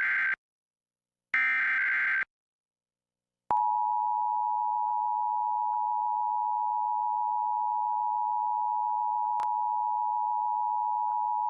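Emergency Alert System SAME header: the end of one harsh digital data burst, then a second full burst of about a second. After a short gap, the EAS two-tone attention signal (853 and 960 Hz together) sounds steadily for about eight seconds and cuts off, opening a Required Monthly Test alert.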